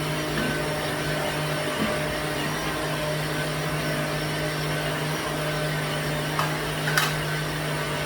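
Electric blender running steadily, its motor humming as it blends plantain for porridge, with a brief click about seven seconds in.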